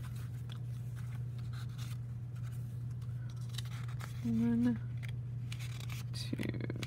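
Paper pages of a pocket notebook being leafed through, soft rustles and flicks over a steady low electrical hum. A short steady hum comes about four seconds in.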